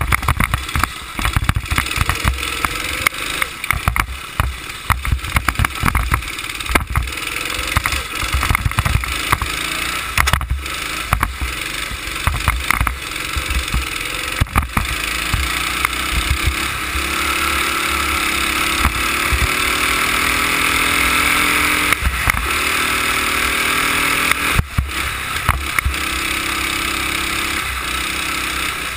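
Go-kart engine running on the move, heard from the kart itself: its pitch climbs steadily through the second half as it accelerates, then drops away about three-quarters of the way through as the throttle comes off. Frequent thumps and buffeting hit the camera microphone throughout.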